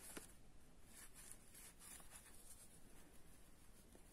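Near silence, with faint scratchy rubbing and a few soft ticks from a crochet hook working cotton yarn.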